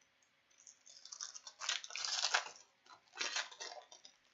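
A trading-card pack wrapper being torn open and crinkled, with the cards handled, in two spells of crackling with a short pause between.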